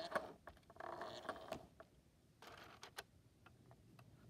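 Faint rustling and sharp clicks from something being handled close to the microphone, in short bursts during the first half, then only scattered light ticks.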